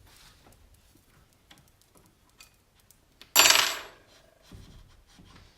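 Small metallic clicks and taps of parts being handled, then one loud metal clank about three and a half seconds in, as the rebuilt motorcycle fork leg is released from its holder.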